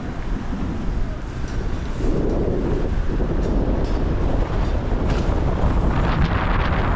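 Car driving through heavy rain at night: a steady rumble of tyres on a wet road mixed with the hiss of rain and spray. It gets louder about two seconds in, and more hiss comes in near the end.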